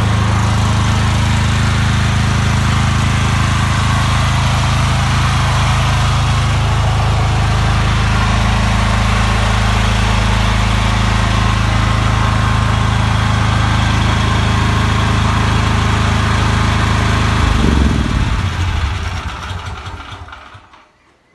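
Portable generator's engine running steadily, then shut off about three-quarters of the way through, its pitch falling as it winds down to a stop.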